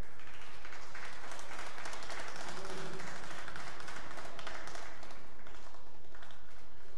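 Audience applauding, starting just after an announcement and dying away about six seconds in.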